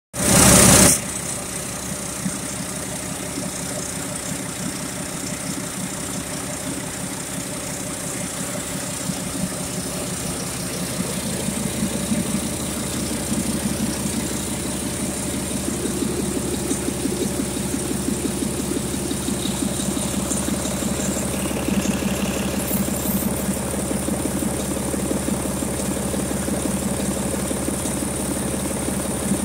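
Mack MP7-325M 10.8-litre six-cylinder diesel engine running steadily on a test stand, a steady low engine note that grows a little louder and more pulsing about a third of the way through. A brief loud noise sounds in the first second.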